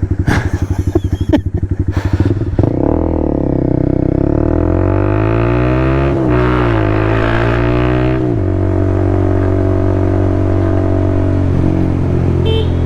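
Motorcycle engine running under way, revving up in pitch from about three seconds in, with a brief dip near six seconds as it shifts gear, then dropping about eight seconds in to steady, lower running.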